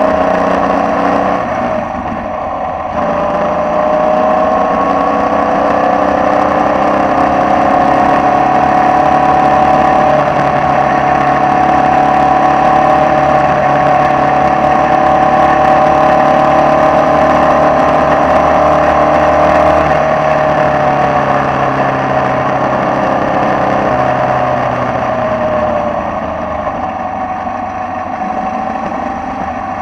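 Formula Vee race car's air-cooled Volkswagen flat-four engine running hard, heard from on board over steady wind rush. The engine note dips briefly about two seconds in, climbs and holds a high steady pitch, falls away about two-thirds of the way through, and picks up again near the end.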